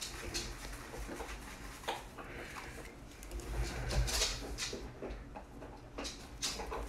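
Faint handling noise from a framed trading card being turned over in the hands: a few soft rustles and light taps over a low hum.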